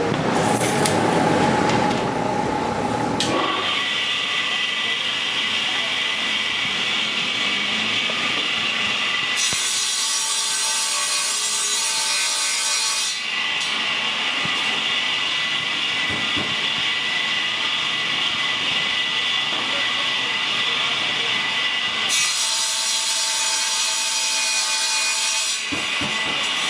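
Table saw running with a steady whine and cutting laminated particleboard panels twice. The blade bites through the board from about ten to thirteen seconds in, and again from about twenty-two to twenty-five seconds in, each time with a harsh hiss. The first three seconds hold a louder, rougher noise.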